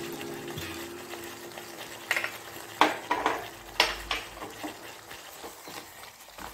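Wooden spatula stirring and scraping crab masala around a pan, with several sharp scrapes and knocks from about two seconds in, over a low sizzle of the masala cooking.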